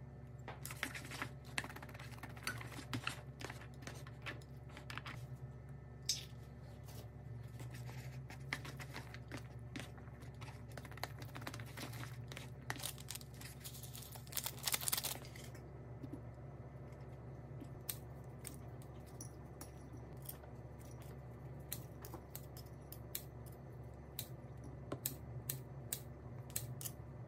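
Quiet food-prep handling sounds: scattered clicks and scrapes of chopsticks against a paper noodle cup, a sauce sachet crinkling as it is squeezed out about halfway through, and kitchen scissors snipping cooked gopchang near the end. A steady low hum runs underneath.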